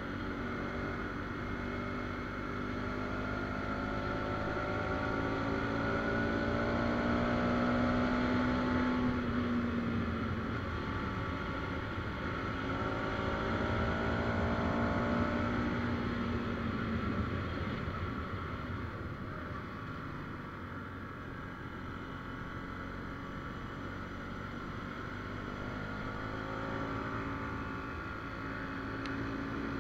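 Motorcycle engine running under way, its pitch climbing twice as the throttle opens and then settling lower, rising again near the end, over a steady rushing noise.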